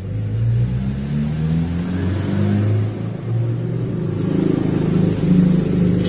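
A motor vehicle engine running, a low hum whose pitch slowly rises and falls, loudest a little after the middle.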